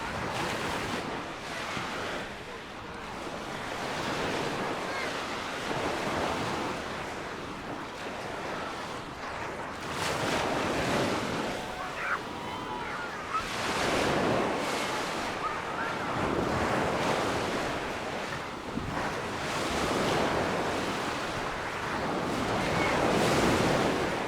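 Small Mediterranean waves breaking and washing up on a sandy beach, swelling and ebbing every few seconds, with wind buffeting the microphone.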